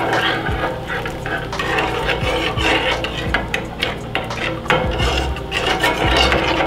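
A metal spoon stirring a saucepan of milk and farina, a steady run of small clinks and scrapes against the sides and bottom of the enamelled pot.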